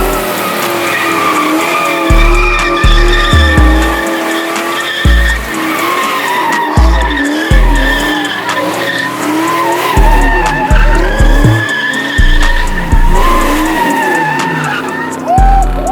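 Car tyres squealing in long, wavering screeches as a car slides or spins, over hip-hop music with heavy bass hits that punch in every second or so.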